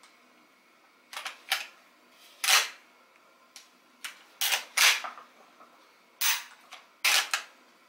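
The pump action of a Marswell Model 1914 12-gauge slide-action shotgun being worked by hand: about ten sharp metal clacks and clicks in small groups as the slide is run back and forth. The action still binds a little, and the owner says the slide needs help from the slide release.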